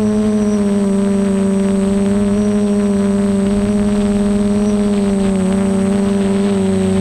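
Multirotor drone's electric motors and propellers, heard from its onboard camera: a steady buzzing hum that wavers slightly in pitch.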